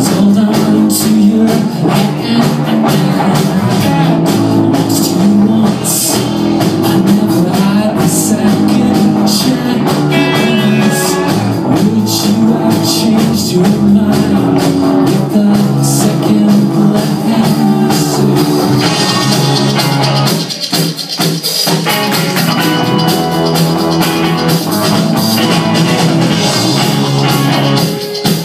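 Rock band playing live: electric guitars, bass guitar and drum kit, heard from the crowd in a small club. The bass and drums drop out briefly about two-thirds of the way through, then the band comes back in.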